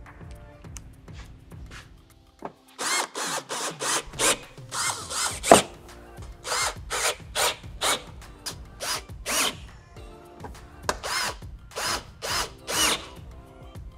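Cordless drill-driver run in many short bursts, about two or three a second, driving screws that fasten a car's rear bumper from underneath.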